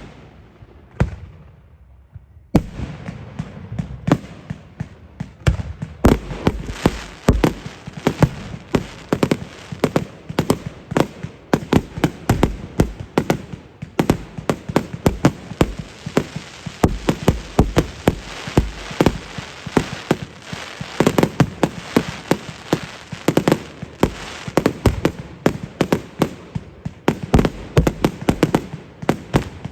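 Fireworks going off: a few separate bangs, then from about two and a half seconds in a dense, unbroken barrage of rapid booms and cracks, several a second.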